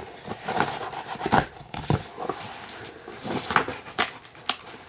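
Scissors cutting and scraping along the packing tape and cardboard flaps of a shipping box: a run of uneven rasps and clicks.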